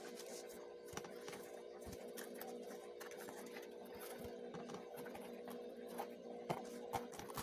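Stiff die-cut paperboard puzzle sheets being handled and flexed: rustling and small crackles, with a few sharper snaps near the end as the sheet is bent to break pieces loose.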